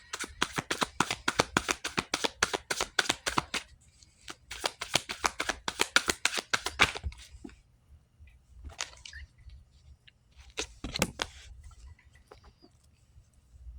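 A deck of cards being shuffled by hand: two runs of quick, rapid clicking of about three seconds each, then a few scattered card flicks.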